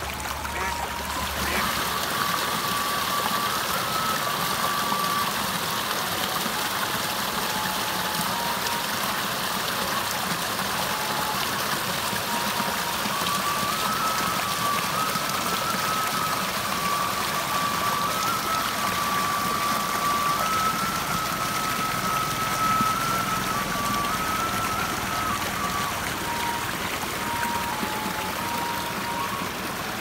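Water rushing and splashing down a small rocky irrigation channel, a steady loud rush that comes up about a second and a half in. Behind it runs faint background music, a thin melody of slow held notes.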